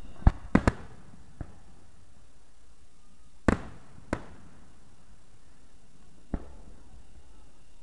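Fireworks bursting: a quick run of three sharp bangs in the first second, then scattered single bangs, each with a short echoing tail.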